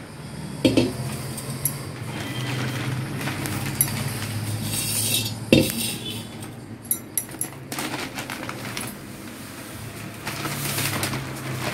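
Newspaper crackling and rustling as sifted rice flour is tipped from it into a stainless steel vessel, with two sharp metallic knocks of the vessel, one just after the start and one about halfway through, over a steady low hum.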